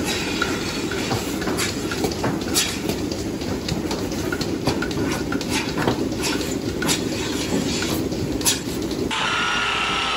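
Milking parlour machinery running, a steady mechanical din with irregular clicks and metal clanks as milking clusters are handled and put on cows. Near the end the sound changes abruptly to a steadier hiss with a slowly falling whine.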